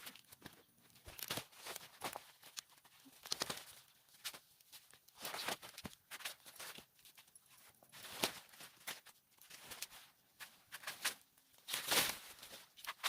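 Irregular rustling, crunching and scraping, typical of potato plants being pulled and soil handled during the harvest. The loudest crunch comes near the end.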